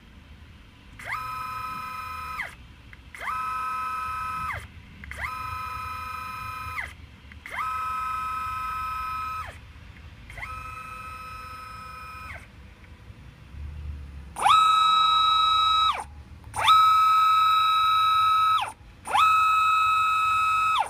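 Encoder-equipped closed-loop stepper motor running repeated moves at its 1500 rpm test speed. It gives eight whines, each rising in pitch as the motor speeds up, holding a steady pitch, then falling as it stops. The last three are louder.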